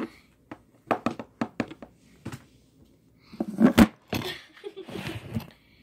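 Handling noise: irregular clicks and knocks of plastic dolls being moved and bumped by hand, with a heavier thud about four seconds in and some rustling.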